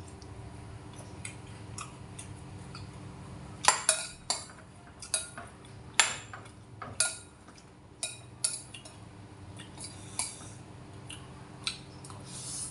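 Metal spoon and fork clinking and scraping against a ceramic bowl of rice in short, irregular strikes, about ten of them, with the loudest in the middle. A faint steady hum runs underneath.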